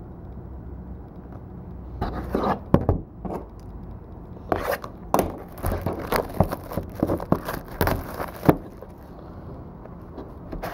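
Trading cards and their cardboard and plastic packaging being handled on a table: irregular scraping, tapping and rustling that starts about two seconds in and stops near the end.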